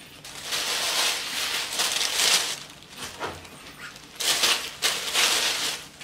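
A white shopping bag and tissue wrapping rustling and crinkling as hands rummage through them, in two spells: a long one over the first two and a half seconds, then a short pause and more rustling later on.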